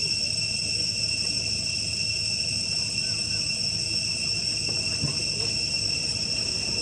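Steady high-pitched insect drone of crickets or cicadas, several unbroken tones, with a faint short call about three seconds in.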